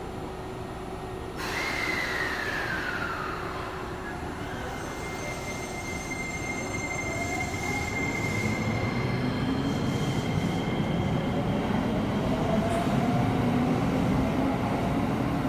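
Electric commuter train pulling away from a station platform. Its motors' whine starts about a second and a half in and climbs steadily in pitch and loudness as the train speeds up, with some wheel squeal.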